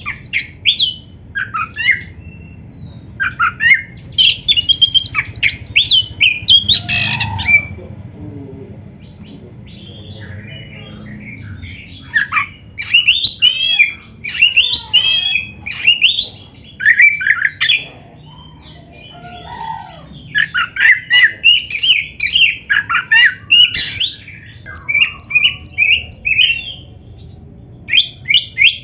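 Oriental magpie-robin (kacer) singing a loud, varied song of rapid whistles and chattering notes in phrases of a few seconds, broken by short pauses.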